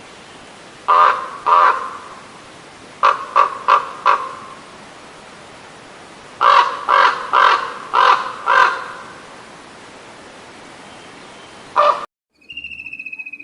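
A bird's loud, harsh calls in clusters: two, then four, then six in quick succession, then one more, over a steady hiss. Near the end it cuts off abruptly and a different high, buzzy whistle follows briefly.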